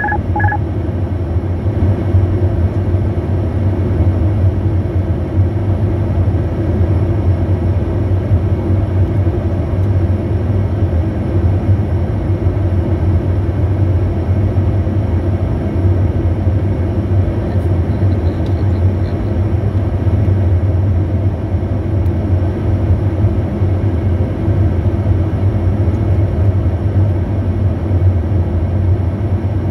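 Steady interior noise of a Bombardier Challenger 350 jet on approach: a low drone of airflow and its Honeywell HTF7350 turbofans. A few short two-tone beeps sound at the very start.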